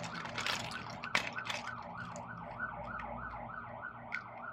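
Emergency-vehicle siren in yelp mode, rising and falling quickly about three times a second without a break. A few sharp clicks of plastic toys being handled, the loudest about a second in.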